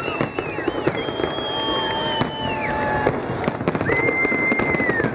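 Fireworks display: dense, rapid crackling and popping of bursting shells. Several long, steady high whistles sound over it, the last one gliding down in pitch as it stops near the end.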